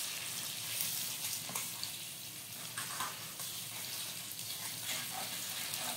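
Eggs frying in oil in a small pan, a steady sizzle, with a few faint scrapes and taps of a spoon against the pan as the egg is turned.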